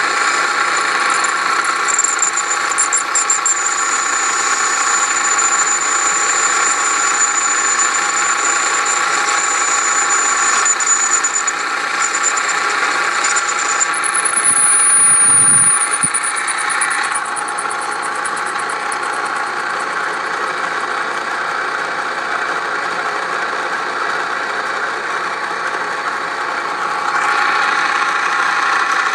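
Wade C.A.V. No. 1 metal lathe running under its electric motor: a loud, steady mechanical drone with a high whine, a brief squeal about halfway, then a slightly quieter stretch before the level rises again near the end. The owner puts the really loud noise down to the motor, not the lathe.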